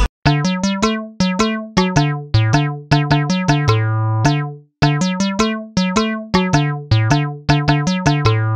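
Background music: a bouncy keyboard melody of short struck notes, each fading quickly, with no drums and a brief stop about halfway through.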